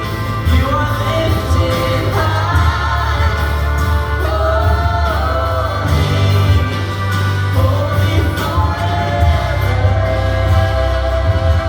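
Live church worship band playing a contemporary worship song, with voices singing held, sweeping melody lines over a heavy, steady bass.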